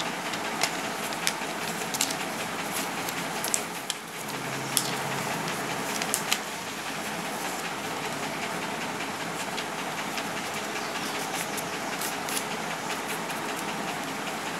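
Steady hissing noise, with a scattered run of sharp crinkles and taps as a sheet of paper is handled and folded by hand.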